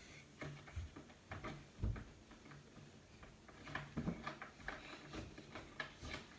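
Plastic toy parts being handled and fitted together during assembly: faint, irregular light clicks and knocks, with a low thud about two seconds in and a quick run of clicks around four seconds in.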